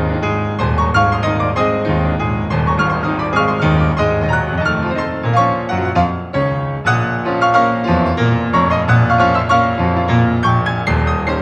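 Solo grand piano playing a dense, busy classical passage, many notes in quick succession over a full bass, with a brief lull about six seconds in.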